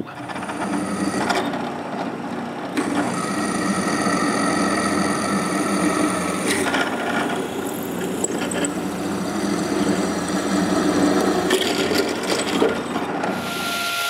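Drill press running, its bit cutting holes through a piece of steel square tubing, a steady motor hum with a grinding whine from the bit. Near the end it gives way to a table saw running.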